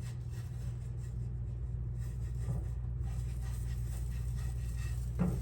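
A steady low hum, with a brief soft knock near the end.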